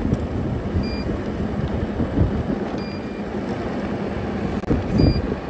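Ride on a NineBot electric go-kart: wind buffets the microphone over tyre rumble, with a faint steady low hum and a short high beep repeating about every two seconds. The loudest buffet comes near the end.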